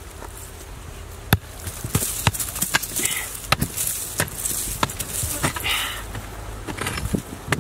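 A metal-headed hand tool striking a hard, dry earth mound again and again, about ten sharp, irregular knocks as it breaks into the mound.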